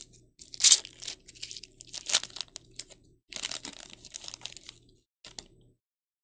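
Foil wrapper of a Panini Recon trading-card pack being torn open and crinkled by hand, with a loud rip a little under a second in and another about two seconds in.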